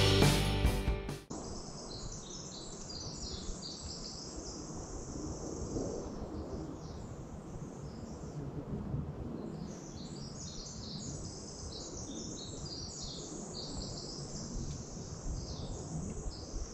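Music fades out in the first second or so. Then comes forest ambience: a chorus of many small birds chirping and singing at once over a low, steady rumble.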